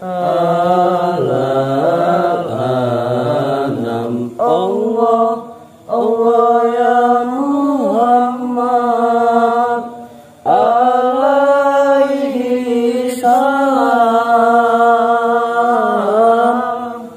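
A voice chanting a slow Arabic devotional invocation in long, drawn-out melodic phrases, with brief breaks about six and ten seconds in.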